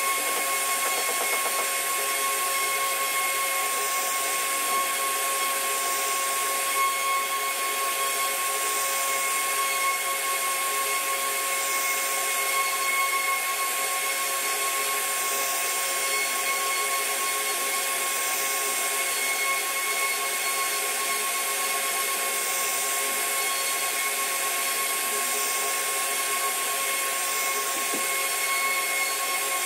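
CNC router spindle running steadily with a high whine as its small bit carves a relief pattern into a wooden panel, over a hiss of cutting.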